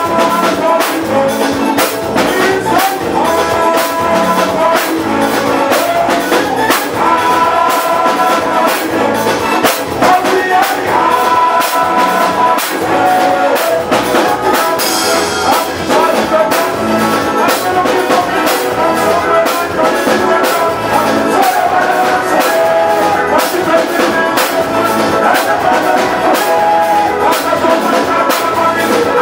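Soca band playing live, with brass horns blowing held riff lines over a fast, steady drum beat.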